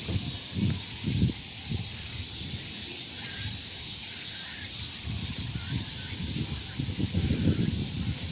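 Steady high-pitched buzzing of insects in a summer forest, with wind rumbling on the microphone in gusts, which grow stronger near the end.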